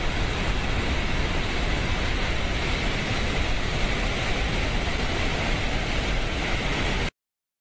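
Steady, even rushing noise of flow that cuts off abruptly about seven seconds in.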